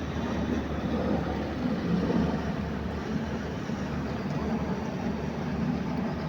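Sea waves: a steady low rush of surf that swells gently about two seconds in and again near the end.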